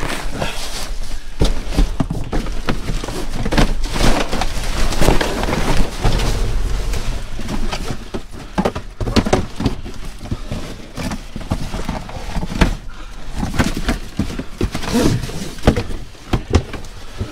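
Cardboard shoe boxes and packaging being shoved, lifted and stacked by hand: a steady run of knocks, thumps and rustling, busier in the first half.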